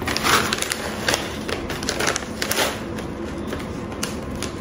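Plastic snack packet crinkling and crackling as it is handled, giving irregular sharp clicks.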